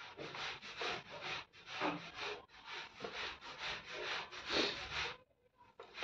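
Quick back-and-forth rubbing or scraping strokes, about two or three a second, pausing briefly near the end.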